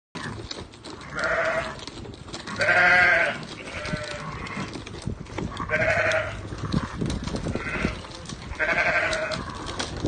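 Sheep bleating about six times in a row, each bleat with a quavering tone.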